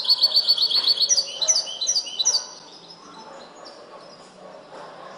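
European goldfinch (chardonneret) singing song trained in the limpio style: a fast run of about ten high repeated notes a second for about a second, then a few falling notes, going quiet about halfway through.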